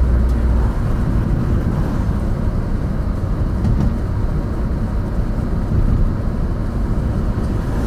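Scion xA's four-cylinder engine and road noise, heard inside the cabin while driving: a steady low rumble, heavier in the first second.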